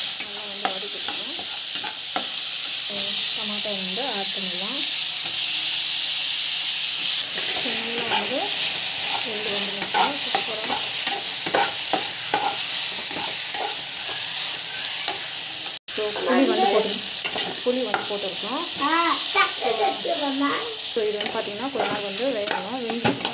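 Pirandai stems, onion, dal and chopped tomatoes sizzling in hot oil in a pan while a metal spatula stirs and scrapes them, with squeaky scrapes of the spatula across the pan. This is the frying of the base for a chutney. The sound drops out for an instant about two-thirds of the way through.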